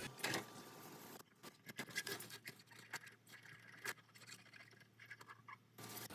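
Faint, irregular scratching and small clicks, as of light handling or rubbing.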